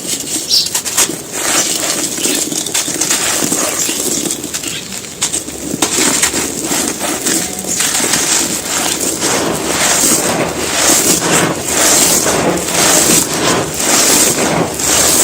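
Dry, gritty handmade cement cups and balls being crumbled and crushed, a dense run of crunching and crackling with many small sharp cracks.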